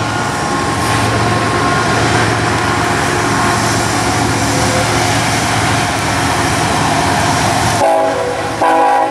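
BNSF intermodal freight train rolling past with a steady rumble and wheel noise. A short chord of horn tones sounds near the end.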